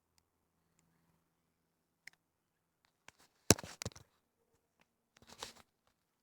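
Dry brush and twigs crunching and crackling underfoot in short clusters. The loudest cluster comes about three and a half seconds in, and a softer one shortly before the end.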